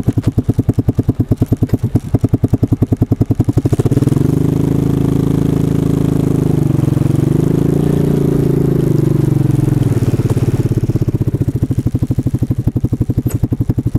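ATV engine chugging at low speed with an even pulsing beat, opened up to a steadier, smoother drone about four seconds in, dipping briefly in the middle, then easing back to the slow pulsing beat near ten seconds in.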